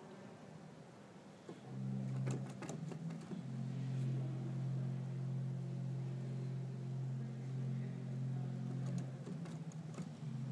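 Church pipe organ holding one low note for about eight seconds. The note breaks off briefly near the end and comes back, with a few clicks as it starts and stops.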